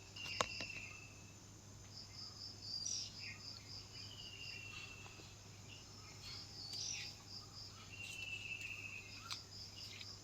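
Birds chirping, with several short whistled notes that fall a little in pitch and quick high chirps. Runs of fast, evenly spaced high pulses are heard alongside, and a sharp click comes about half a second in.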